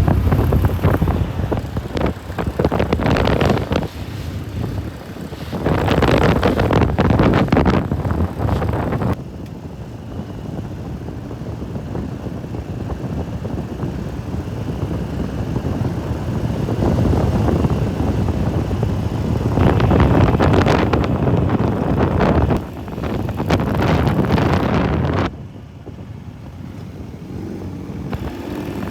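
Motorcycles riding on the road, engine noise mixed with wind buffeting the microphone. The sound changes abruptly about nine seconds in and again near the end.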